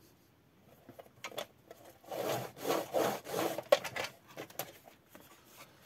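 Sliding paper-trimmer blade drawn along its rail through a sheet of cardstock: a rasping cut lasting about two seconds in the middle, with a few clicks before and after.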